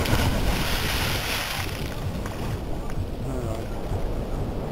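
Wind rumbling on the microphone over the sea on a boat, with a steady noisy rush of water. The hiss is stronger for the first second or so.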